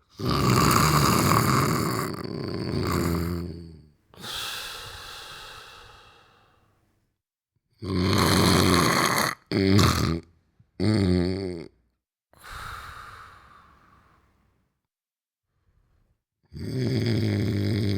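A sleeping person snoring loudly in a cycle: a long snore, then a softer airy breath that fades. Two short snorts come in the middle, and a new snore starts near the end.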